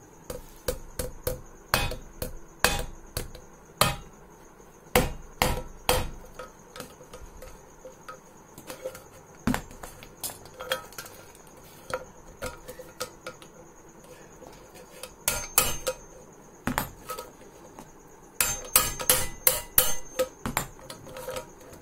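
Scissors cutting through a thin metal tin: sharp, irregular snips and metallic clicks, with a rapid cluster of snips near the end. A steady high-pitched cricket chirring runs underneath.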